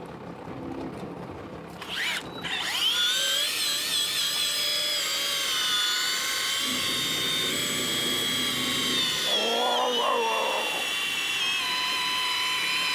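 Electric fishing reel's motor starting to wind about two seconds in, its whine rising in pitch and then holding steady as it hauls line in against a hooked fish.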